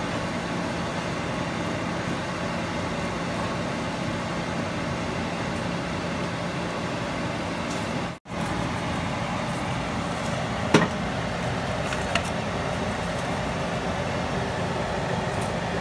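Ground meat and onions sizzling steadily in a cast-iron skillet, cutting out for a moment about eight seconds in. A few seconds later the spatula knocks sharply against the pan twice.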